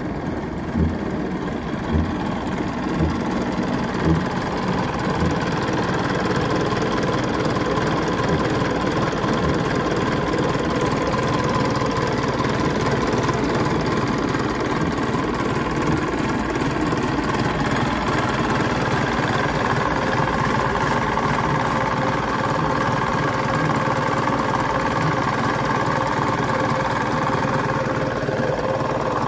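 1962 Nuffield 460 tractor's four-cylinder diesel engine idling steadily. A few low thumps come about once a second during the first few seconds.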